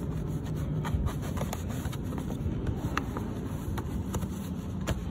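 Plastic engine-bay trim being pressed and clipped back into place: scattered light clicks and scraping over a steady low hum.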